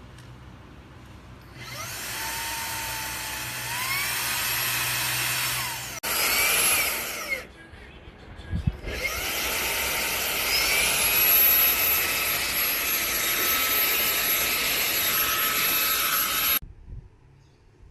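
Xiaomi Mijia handheld cordless vacuum cleaner running: its small high-speed motor whines up to speed about two seconds in, breaks off briefly around the middle, then starts again with a rising whine, runs steadily, and cuts off suddenly near the end.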